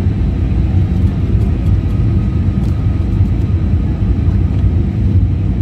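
Steady low rumble of an airliner's jet engines and rushing air, heard inside the passenger cabin in flight.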